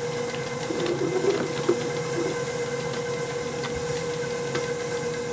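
Electric mixer motor running steadily with a constant hum while it blends cream cheese and sugar, with a few faint clicks of items being handled.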